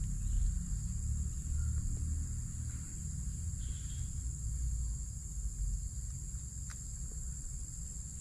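Steady high-pitched insect chirring, such as crickets, with a low rumble underneath.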